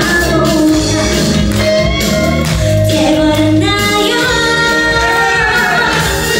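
A woman singing live into a handheld microphone over instrumental accompaniment, holding a long note in the second half.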